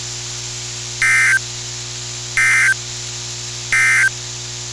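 Emergency Alert System SAME end-of-message data bursts from NOAA Weather Radio: three short, identical digital buzzes about 1.3 s apart, signalling that the severe thunderstorm watch alert has ended. A steady low hum and hiss from the radio sits underneath.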